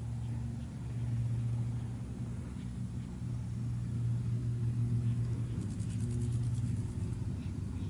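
Light single-engine propeller plane's engine running at low power as it lands on a dirt airstrip: a steady low drone.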